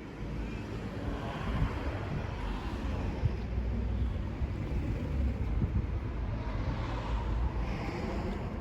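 Wind buffeting the microphone outdoors: an uneven low rumble over a steady rushing hiss.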